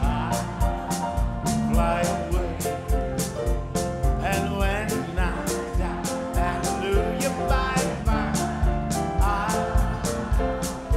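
Country-gospel band music with a steady drum beat and sliding melody lines.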